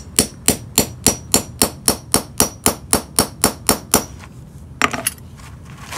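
Hammer striking a grommet setting tool in a quick, even series of about three to four blows a second, each with a short metallic ring, stopping about four seconds in. The blows are flaring a 1/2-inch metal grommet into a canvas drop cloth laid over cardboard.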